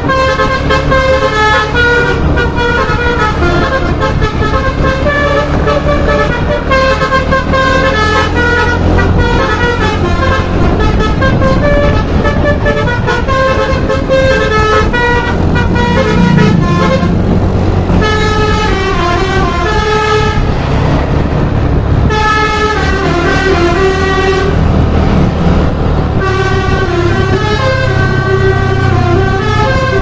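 Telolet Basuri musical air horn on a tour bus playing a nearly continuous melody of quick stepped notes, over the steady low rumble of the bus's engine.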